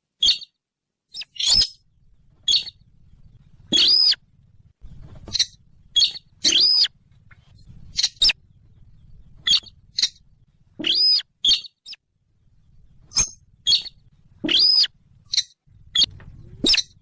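Sintar bird calls played as a hunting lure: short, sharp, arched high notes, singly and in quick pairs, repeating at irregular intervals, with a faint low hum between them.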